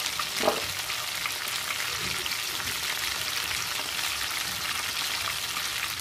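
Whole fish frying in hot oil in a wok: steady sizzling of the oil with fine crackling spatters, and one louder pop about half a second in.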